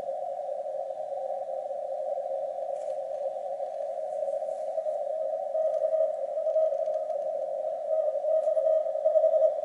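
Icom IC-7300 receiving CW on the 15 m band: receiver noise hissing through the narrow CW filter, with a weak Morse code signal coming up in the noise about halfway through and getting louder near the end.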